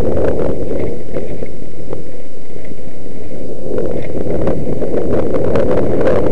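Loud wind noise buffeting the microphone of a mountain bike descending a dirt trail at speed, with frequent clicks and knocks from the bike rattling over the rough ground.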